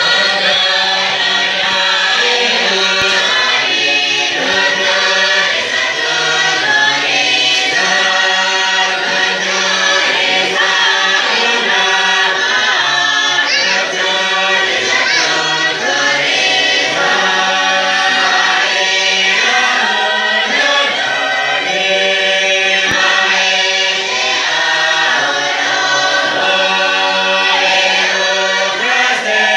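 Choir of many voices singing a hymn together.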